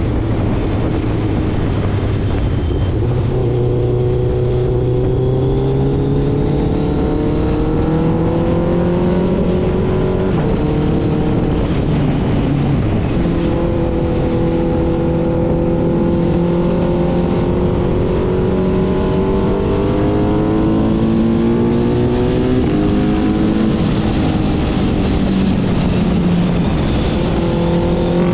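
Suzuki Hayabusa Gen3's 1340 cc inline-four running through an Ixil aftermarket exhaust while riding. The engine note climbs slowly and drops back several times, as the revs rise and fall.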